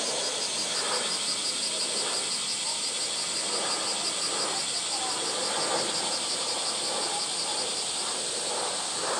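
A steady chorus of cicadas: a high buzzing with a fast, even pulse.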